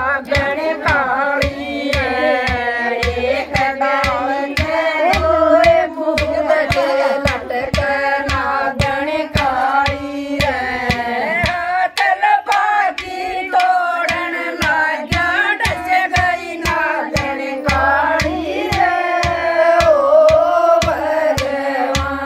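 Women singing a Haryanvi devotional bhajan together, with a steady hand-struck beat on a clay water pot (ghara) used as a drum.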